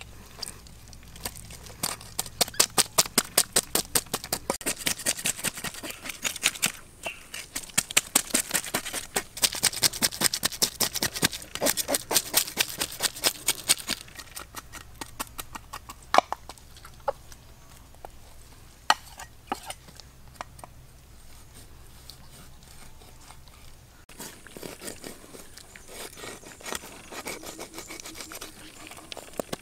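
A cleaver scraping scales off a snakehead fish in rapid strokes, about five a second, for the first half. After that come scattered single scrapes and knocks of the blade, then quicker scraping on a smaller fish near the end.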